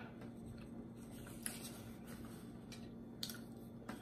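Quiet room tone with a steady low electrical hum, broken by three faint, short clicks.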